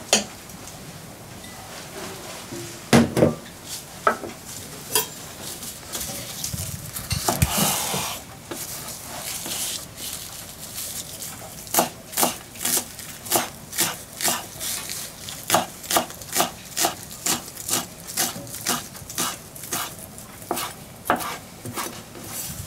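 Scattered knocks and rustles in the first half, then a kitchen knife slicing shiso leaves into thin strips on a wooden cutting board: steady taps, about two or three a second, through the second half.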